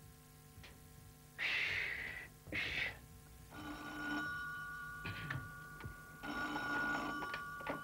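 Telephone bell ringing twice, a couple of seconds apart, with steady high tones between the rings. About a second and a half in, before the ringing, come two short rushing noises.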